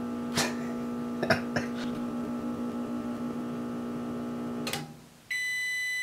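Nostalgia RMO4AQ 800-watt microwave oven running with a steady hum and a few light clicks, then shutting off with a click near the end. One long, high beep follows, signalling that the cooking cycle is finished.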